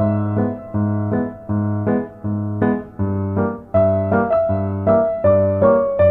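Background piano music: a steady melody of struck notes, about two a second, each ringing and fading.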